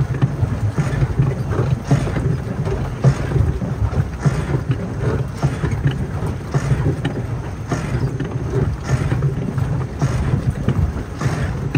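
Wind buffeting the microphone in a steady low rumble aboard a small boat on open water, with short gusty flare-ups about once a second.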